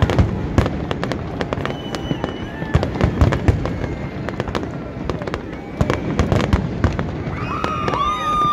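Fireworks display: a rapid, irregular run of shell bursts, bangs and crackles over a continuous rumble. Near the end a sustained whistling tone sets in.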